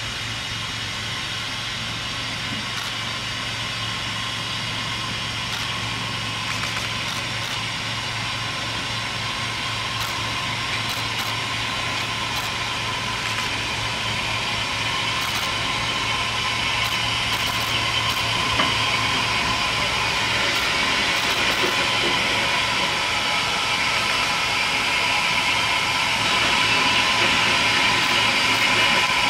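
Steam locomotive giving off a steady hiss with a few held whistling tones, growing gradually louder.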